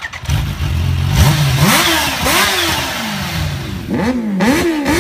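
Kawasaki Ninja H2's supercharged inline-four engine idling, then revved repeatedly from about a second and a half in, the revs climbing sharply and falling back several times.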